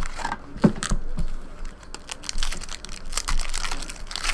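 Foil trading card pack wrapper being torn open and crinkled, in a string of irregular crackles and rustles.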